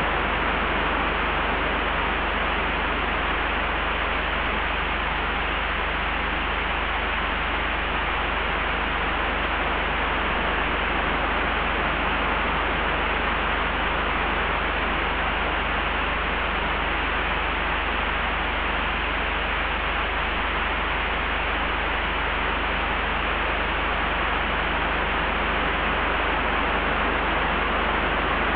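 Steady layered wind ambience: an even rushing hiss with a deep low rumble underneath, holding one level without gusts or breaks.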